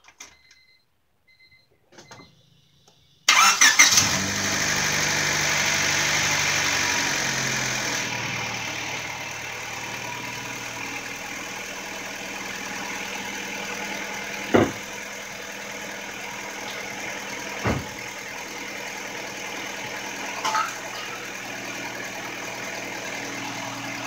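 Honda Civic four-cylinder engine cranking briefly and starting about three seconds in. It runs faster and louder for a few seconds, then settles to a steady idle, with a few sharp clicks along the way. With a new catalytic converter fitted, the leak from the cracked manifold is gone; the owner hears only a small exhaust leak further back, near the muffler flange.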